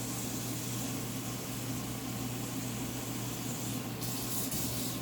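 Water being poured steadily into a clay pot of soaked rice, filling it up to the measuring line, over a steady low hum.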